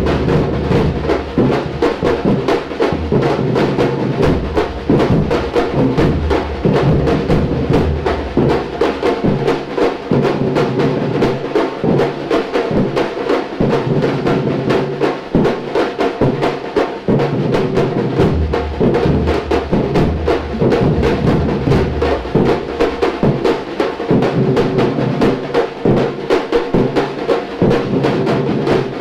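Samba-reggae drum band playing: a dense, fast rhythm of snare and repique strokes over deep surdo bass drums. The bass drums drop out for several seconds in the middle, then come back in.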